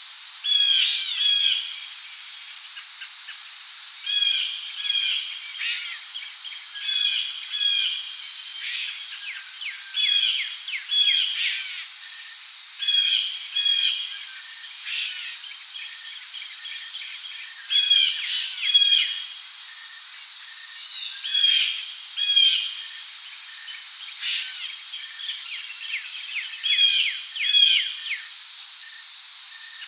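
Rainforest ambience: a steady high-pitched drone of insects, with birds calling over it in short, repeated chirping phrases every second or two.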